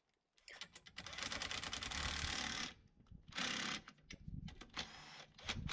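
Cordless power driver running bolts in on a scooter's exhaust mount: one run of about two seconds, then two short bursts, with rapid clicking.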